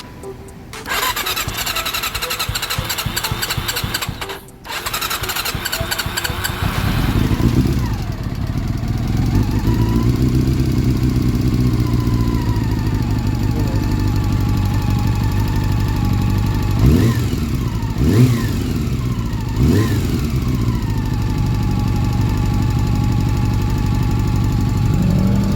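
Honda CB400 Super Four inline-four engine cranked on the electric starter, pausing once and cranking again before it catches about seven seconds in. It then idles, with three short throttle blips a few seconds before the end. The engine has a steady tick from the top end, which the owner suspects comes from the cam chain tensioner or chain guide.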